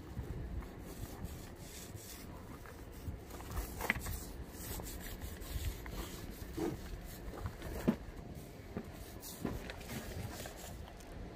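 Faint rubbing and a few light knocks from hand-laying fiberglass: resin is poured from a plastic jug onto chopped-strand mat and worked in with a roller, over a low steady rumble.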